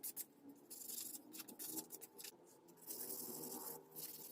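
Faint hand sanding of a wooden knife handle: sandpaper rubbed over the wood in short hissing strokes that start and stop.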